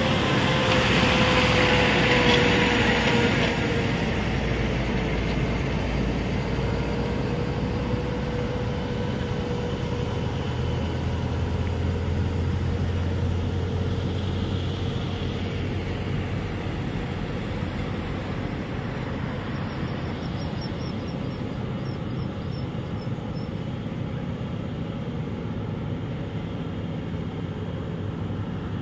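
Heavy diesel trucks and other traffic on the road, engines running steadily with tyre noise; loudest in the first few seconds as a vehicle passes close, with a stronger low engine drone for a few seconds around the middle.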